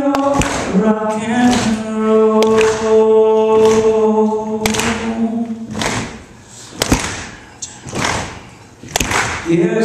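A man singing a cappella into a handheld microphone, with no instruments: he holds one long note for about five seconds, then sings softer, broken phrases, picking up again near the end. A few sharp clicks sound in the quieter stretch.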